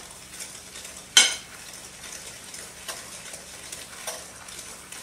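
Wire whisk stirring an egg into a thick butter-and-sugar mixture in a glass bowl: a soft, wet, scraping churn with light ticks, and one sharp click about a second in.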